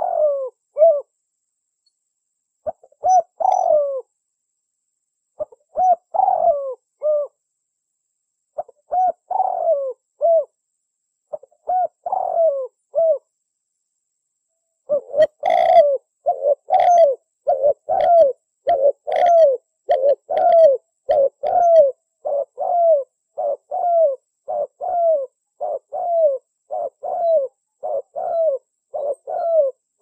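Spotted dove cooing: short phrases of three or four coos with gaps of a couple of seconds between them, then from about halfway an unbroken run of coos at about one and a half a second.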